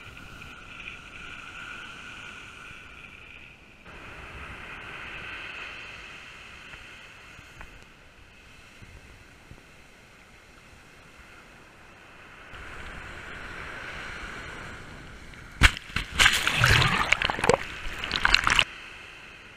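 Shorebreak waves washing up the sand, a steady wash that swells and fades. Near the end, about three seconds of loud, choppy splashing as a wave surges right up to the microphone.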